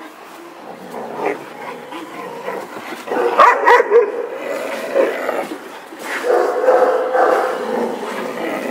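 Dogs yipping and barking as they wrestle in rough play, the sounds coming in uneven clusters.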